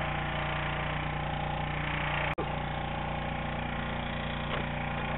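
A small engine running steadily at an even speed, with a brief gap about two and a half seconds in.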